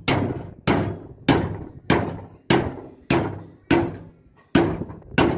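Repeated hammer blows on a steel drum, about nine strikes at a steady pace of roughly one every 0.6 seconds, each leaving a brief metallic ring. The blows work along a marked line on the drum up to its end point.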